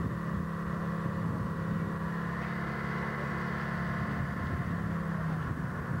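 Truck-mounted crane's engine running steadily while it holds a lifted beam, a continuous even drone.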